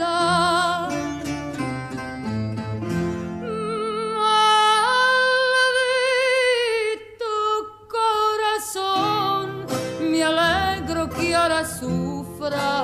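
Background music: a slow Spanish-language song with guitar accompaniment, with a long held, wavering note in the middle.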